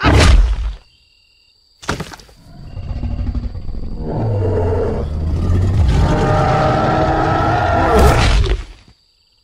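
Film sound effects: a sharp hit at the start and another about two seconds in, then a long, loud rumble that builds, holds and cuts off suddenly near the end.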